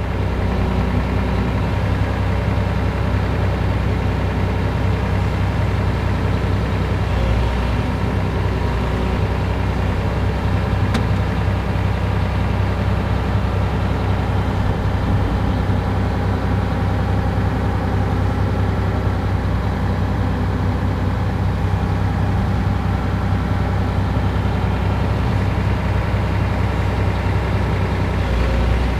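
Volvo EC460 excavator's diesel engine running steadily, heard from inside the cab.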